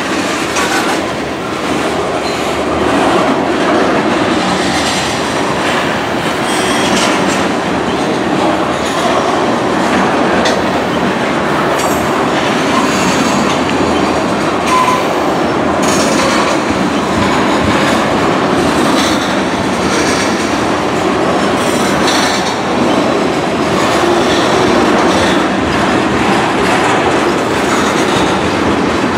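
Freight train of tank cars rolling past: a steady rumble and clatter of steel wheels over the rails and rail joints, with an occasional brief wheel squeal.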